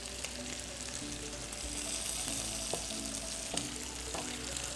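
Lamb ribs sizzling in a frying pan, a steady hiss, with a few sharp knife taps on a plastic cutting board as mushrooms are sliced. Faint background music.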